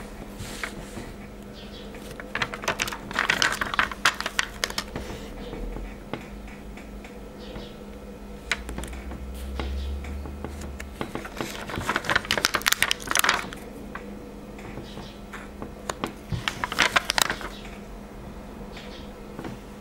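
Fingers peeling foam stickers off their backing sheet and pressing them onto paper close to the microphone. The result is three spells of quick crackling clicks over a steady faint hum.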